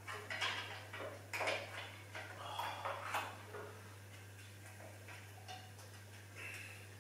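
Small metal parts and tools clinking and scraping as a steel Smith machine and cable gym is put together. A quick cluster of clicks and knocks comes in the first few seconds, one with a short metallic ring, then a few fainter taps.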